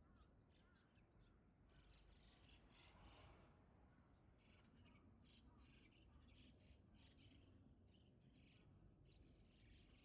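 Faint short calls from a flock of birds flying overhead, repeating irregularly, several a second at times.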